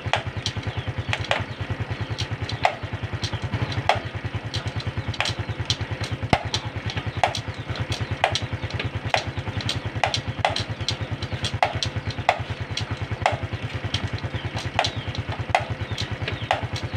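Honda Supra X 125 FI's single-cylinder four-stroke engine idling, with a sharp 'ceklok' clack about every half second to second as the gear pedal is shifted. The fault is a loud clunk from the gearshift on the clutch side of the engine.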